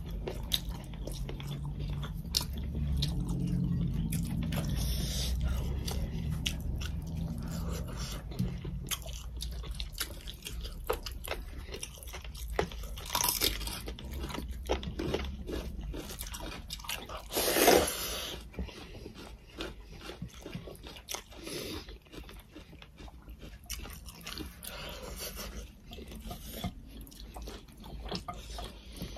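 Close-up chewing and mouth-smacking of people eating rice and bone-in chicken curry with their hands, with many small wet clicks. A low hum runs under the first nine seconds or so, and one louder sharp sound comes about eighteen seconds in.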